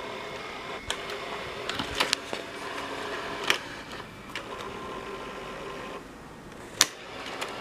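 Scattered sharp clicks and knocks, the loudest near the end, over a steady mechanical hum with a faint whine, as an S-VHS camcorder and its tape controls are handled and operated.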